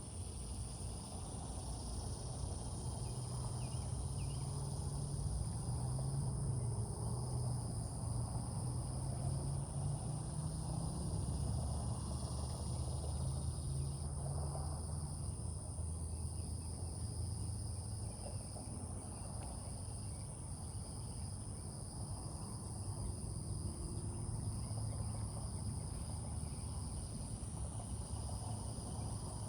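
Steady insect chorus of high, unbroken tones, over a low rumble that swells through the first half.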